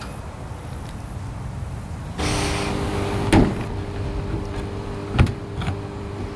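Two short knocks and clicks on the metal fuselage panel and door latch of a de Havilland Canada Caribou, the sharper one near the end. They sit over a steady two-tone mechanical hum that starts about two seconds in.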